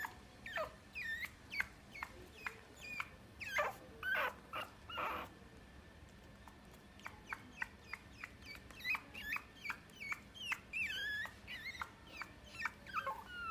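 Puppy giving a run of short, high-pitched whimpers and squeaky yips, most of them falling in pitch, about two a second, with a pause of over a second in the middle.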